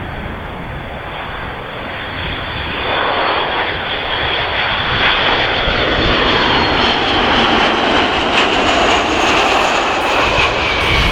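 Boeing RC-135 Rivet Joint's four CFM56 (F108) turbofans growing louder as the jet passes close, with a high whine that slowly falls in pitch.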